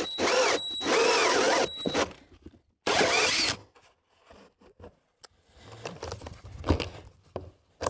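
DeWalt cordless drill spinning a 5-inch hole saw through the plastic wall of a septic tank, in loud bursts: about two seconds of cutting with short breaks, then a second short burst about three seconds in. Faint handling and rubbing sounds follow near the end as a rubber gasket is fitted into the cut hole.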